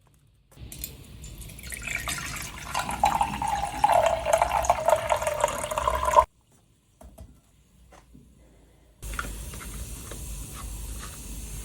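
Water running from a tap into a container, with a ringing tone as it fills; it cuts off abruptly about six seconds in. A steady run of water starts again about nine seconds in.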